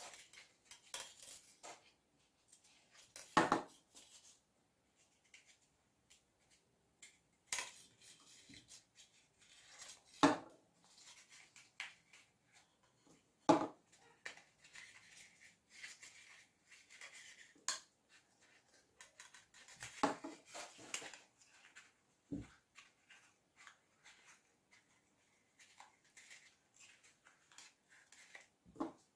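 Hands working a small EVA foam flower on a wire at a tabletop: scattered small clicks and light rustling, with a few sharper taps and knocks on the table at irregular intervals.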